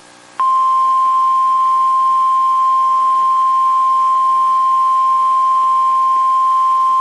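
NOAA Weather Radio warning alarm tone: a single steady 1050 Hz tone that comes on about half a second in and holds unbroken. It is the signal that a warning broadcast, here a tornado warning, follows.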